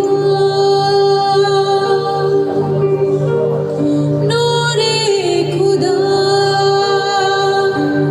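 Slow worship music: sustained chords held and changing every second or two under a gliding melody line.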